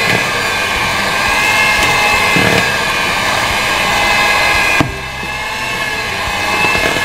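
Electric hand mixer running steadily with a high whine, its twin beaters churning cake batter to blend in pandan paste. A click about five seconds in, after which it runs a little quieter.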